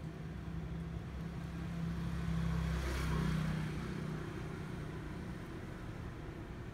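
A motor vehicle passing close by, its engine sound and tyre hiss rising to a peak about three seconds in and then fading, over a steady low hum.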